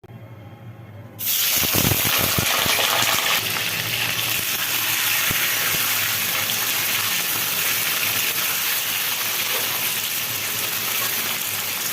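Food going into hot oil in a pan, starting suddenly about a second in with a few crackles, then a loud steady sizzle of frying.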